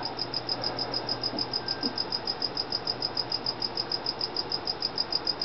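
Feeder cricket chirping steadily: a fast, even train of short high chirps, about eight a second, over a faint low hum.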